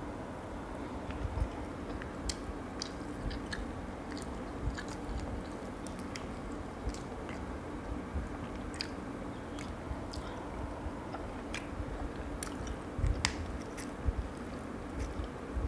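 Close-up chewing and mouth sounds of someone eating lobster meat, with scattered small clicks and cracks as lobster shell is picked apart by hand and a few louder taps near the end, over a steady low hum.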